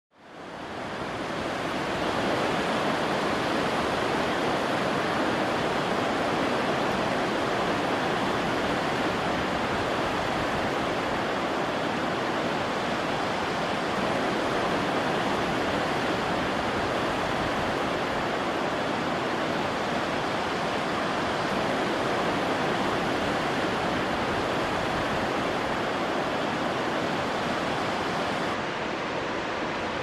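Steady roar of ocean surf on a beach, fading in over the first couple of seconds.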